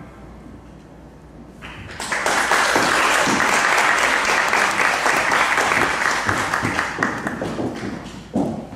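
Audience applauding, starting about two seconds in and fading away near the end.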